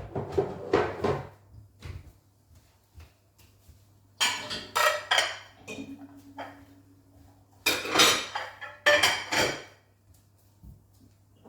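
Dishes and pots clattering and clinking as they are lifted out of a dishwasher rack, in three loud bursts of clatter with lighter knocks between.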